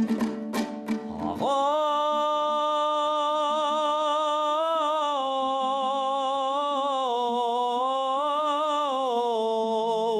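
Kazakh traditional song: quick strummed plucked-string accompaniment, then a singer holds one long wavering note with vibrato for about eight seconds, dipping and rising slightly in pitch.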